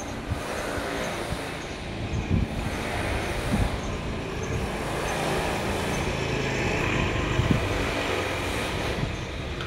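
Steady road-traffic noise, a low rumble with hiss, with a few brief low thumps.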